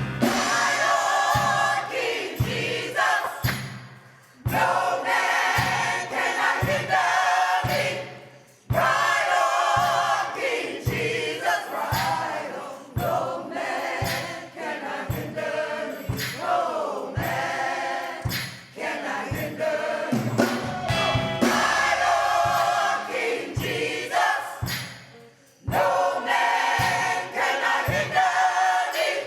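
Gospel choir singing with band accompaniment and a steady beat, with a few brief breaks between phrases.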